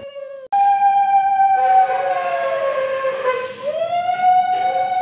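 Conch shell (shankha) blown in long, steady horn-like notes, sounded for a Bengali blessing ritual. After a brief breath about half a second in, a new note starts; its pitch sags and then rises again near the end. A second, lower conch note overlaps it from about a second and a half in.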